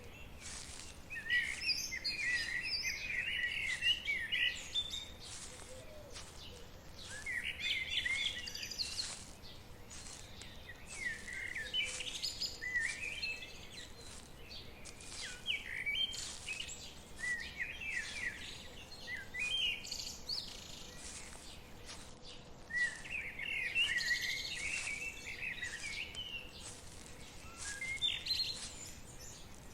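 Songbirds singing in woodland: repeated bouts of quick chirping and warbling phrases every few seconds, over a faint steady background hiss.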